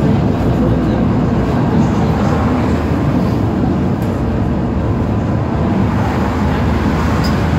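Düwag N8C-NF tram in motion, heard on board: a steady, loud rumble of wheels on rails and running gear.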